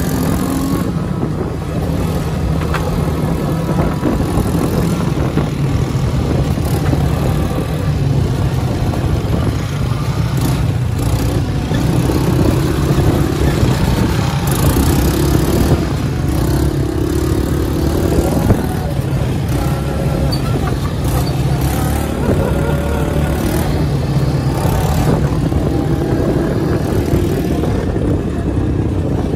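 Quad bike (ATV) engine running steadily at riding speed, heard from on board, its pitch shifting a little with the throttle.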